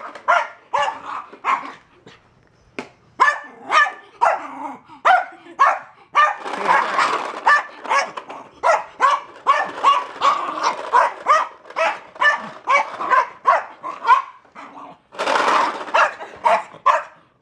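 Dog barking over and over in short, sharp barks, about two a second, at a plastic toy push mower. The barking is interrupted by two harsher stretches of continuous noise, about six seconds in and again near the end.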